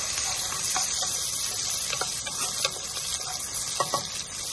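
Diced onions sizzling in oil in a pot as they are sweated, with a steady hiss. A wooden spoon stirs them and knocks against the pot a few times.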